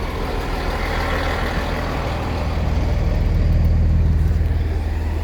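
Class 165 diesel multiple unit's underfloor diesel engines running with a low, steady throb that grows louder about three seconds in and eases slightly near the end.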